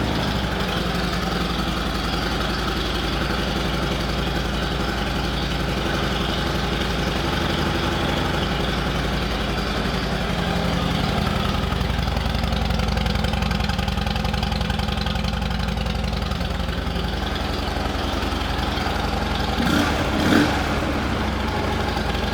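2009 Harley-Davidson Ultra Classic Electra Glide's V-twin engine idling steadily through its exhaust, with a brief louder burst near the end. The exhaust sounds like it has had a little baffle work done.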